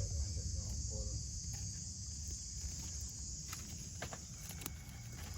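Steady high-pitched chorus of insects, with a low rumble underneath and a few faint knocks in the second half.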